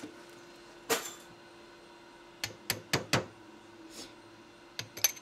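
Hammer tapping a steel drift to seat a piston-pin snap ring into its groove in a piston's pin bore: sharp metallic taps, one about a second in, a quick run of four around the middle and three more near the end. A faint steady hum lies underneath.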